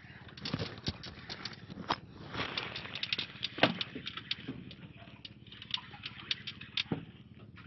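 Irregular sharp clicks and knocks from handling a fishing rod and reel on a boat, the loudest a single knock about three and a half seconds in.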